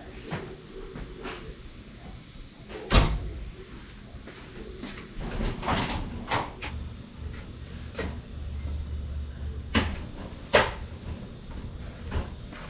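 Doors being opened and shut: a glass-panelled sliding door, then a metal front gate door unlatched, swung open and pulled closed. A string of clunks and knocks, the loudest about three seconds in and about ten and a half seconds in.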